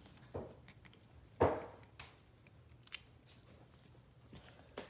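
Young puppies scuffling and mouthing plush toys on carpet: scattered soft knocks and scuffs, with one louder thump about a second and a half in.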